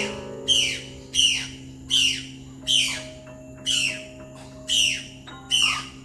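A bird repeating a short, sharply down-sweeping call about seven times, roughly one every 0.8 s, over quietly held piano notes.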